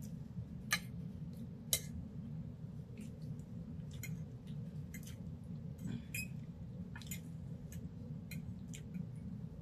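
Fork clicking and scraping on a plate, with scattered small clicks of eating; two sharper clinks come about one and two seconds in. A steady low hum runs underneath.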